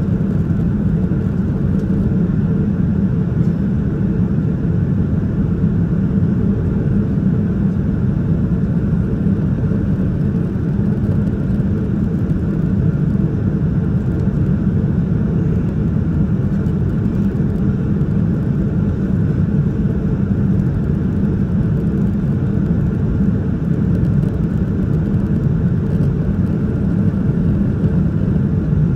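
Steady cabin noise of a Boeing 787-9 Dreamliner in flight: an even low rumble of engines and airflow that does not change.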